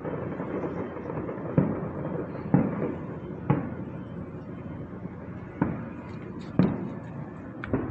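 Aerial fireworks heard from a distance: a string of about five sharp booms, spaced roughly one to two seconds apart, each trailing off in a short rumble. Between them runs a steady background noise.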